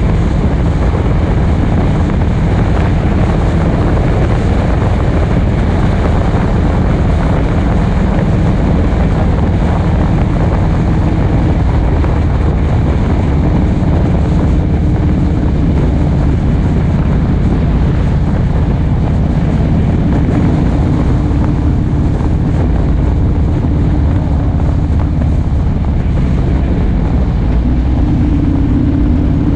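Motorcycle engine running steadily at road speed, with wind rushing past the microphone.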